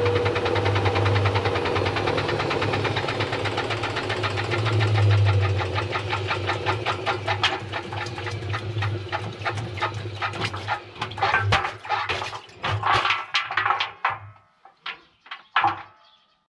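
Washing machine running with balloons and cubes tumbling in its drum: a steady motor hum, then more and more knocks of the objects hitting the drum. The motor cuts out near the end and a few last knocks die away as the drum comes to rest.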